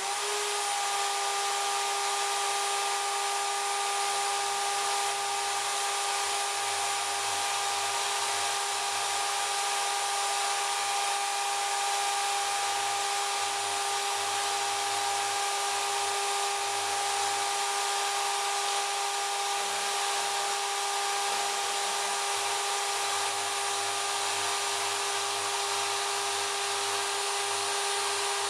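Wood router serving as the spindle of a DIY CNC router, running steadily at full speed with a high whine after spinning up in the first half second. A lower hum comes and goes underneath.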